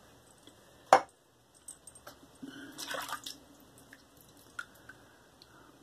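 A single sharp tap about a second in, then a short spell of splashing and dripping water as the safety razor is rinsed.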